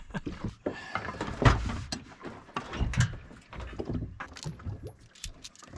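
Gear being handled while a small table is set up on a boat: irregular knocks, clicks and light clatter, with heavier thumps about a second and a half in and again at three seconds.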